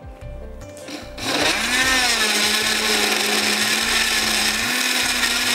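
Electric kitchen blender switched on about a second in, its motor spinning up and then running steadily, blending bananas, oats, ice, milk and yogurt into a smoothie.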